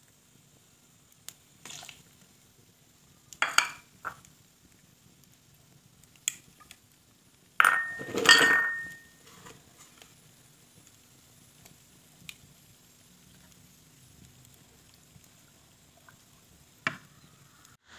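Scattered clinks and knocks of spoons against a metal cooking pot, with small splashes and drips as seasonings and oil go into the rice water. The loudest is a clatter about eight seconds in, with a short metallic ring.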